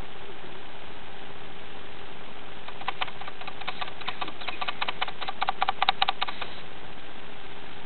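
Meerkats giving a rapid run of short clicking calls, starting about three seconds in, growing denser, and stopping about a second and a half before the end. Underneath is a steady hiss with a faint hum.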